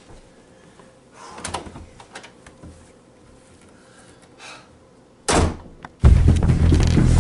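A door handled with faint rustling and knocks, then a single loud slam about five seconds in. Loud music starts about a second after the slam and is the loudest sound.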